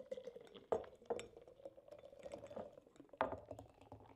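Nitro stout pouring from a widget can into a pint glass in one steady pour: a quiet run of liquid with a fine fizzing crackle, and a few louder glugs from the can, about a second in and again near three seconds.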